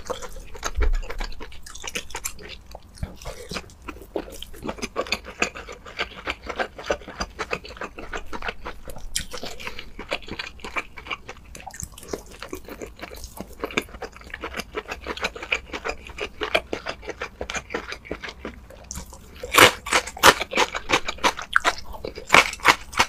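A person chewing and biting food with chopsticks, a quick irregular run of small clicks and smacks from the mouth; the chewing gets louder in the last few seconds.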